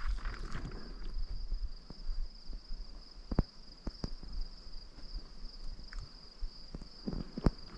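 Insects trilling steadily at a high pitch, over footsteps through dry grass with a few sharp knocks, the loudest near the end.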